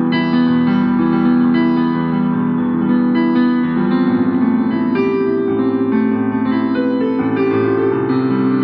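Instrumental keyboard music in an electric-piano sound: held, overlapping chords whose notes change every second or so, some of them wavering slightly.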